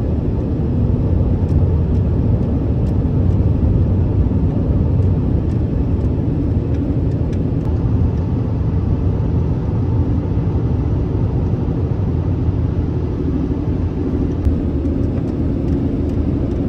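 Steady low rumble of a Honda Element's engine and tyres on the road, heard from inside the cabin while driving.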